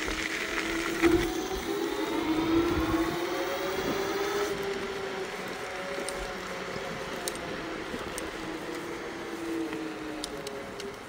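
Bluetran Lightning electric scooter's motor whining as it speeds up. The whine rises in pitch over the first few seconds and then holds roughly steady near top speed, over a steady rushing noise.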